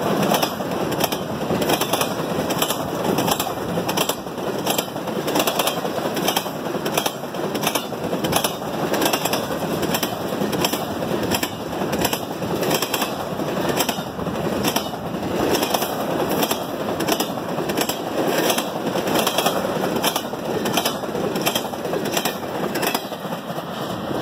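Freight train of double-stack well cars rolling past at speed: a steady rumble and rattle of steel wheels on rail, with a regular clatter about twice a second.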